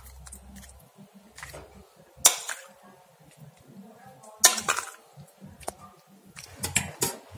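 Metal spoon clinking and scraping against a serving plate while spreading a thick yogurt-tahini sauce over fried bread: a few sharp clinks about two seconds apart, with soft scraping between.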